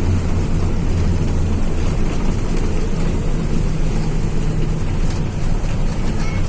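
Bus under way, heard from inside the cabin: a steady low engine drone under a constant rumble of road and tyre noise.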